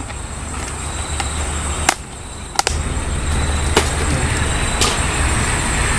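A clear plastic container being handled and its lid worked open, making four sharp clicks about a second apart, over a steady low rumble and a high steady buzz.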